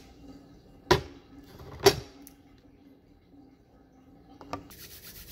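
Two sharp knocks about a second apart, as a heavy dinner plate is set down on a table, then a lighter click, and near the end a fast scraping rub begins.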